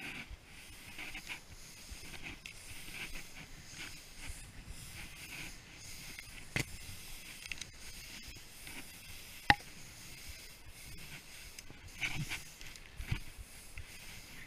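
Skis hissing and scraping over snow through a series of turns, the noise swelling and easing with each turn. Two sharp clicks come in the middle, the second the loudest moment, and a couple of dull thuds come near the end.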